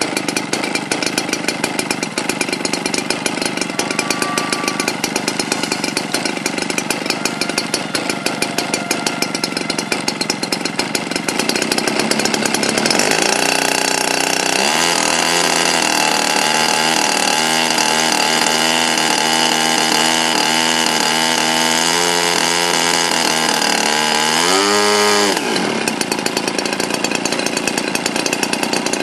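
Small combustion engine of a radio-controlled model aircraft running. It starts as a rapid buzzing, then from about halfway through changes to a higher, steady whine whose pitch wavers. Near the end the pitch dips and swings back up, and the buzzing returns.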